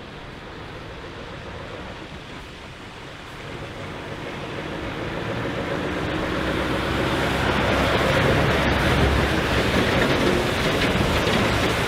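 Scania truck and bulk tanker trailer driving slowly past, diesel engine running and tyres rushing on the wet road. It grows louder from about four seconds in and is loudest near the end as it passes close by.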